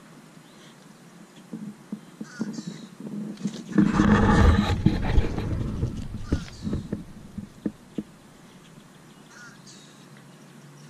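Birds chirping in the background, with a loud rush of noise, like wind buffeting the microphone, lasting about two seconds near the middle, followed by a few light clicks.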